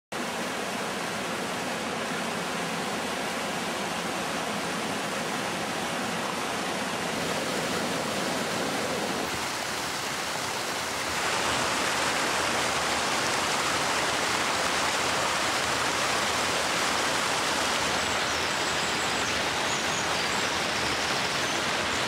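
Fast mountain river rushing over rocks: a steady hiss of white water that gets louder about eleven seconds in.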